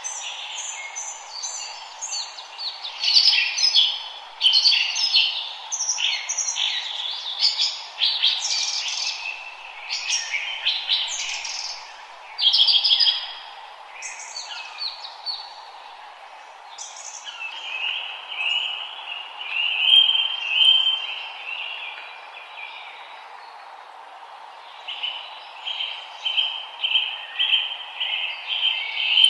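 Several small forest birds singing at once, with quick overlapping chirps and warbling phrases. Partway through, a steady high buzzing trill takes over, over a constant soft hiss.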